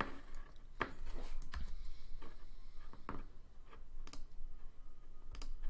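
Scattered sharp clicks from computer input, a mouse or trackpad and keys, about one a second, while a file-open dialog is navigated.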